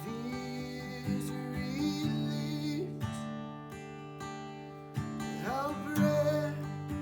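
Acoustic guitar strummed, playing sustained chords that change every second or two.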